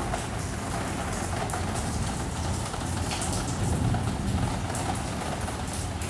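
Rain falling on window glass heard from indoors: a steady hiss with many small drop taps, over a low rumble.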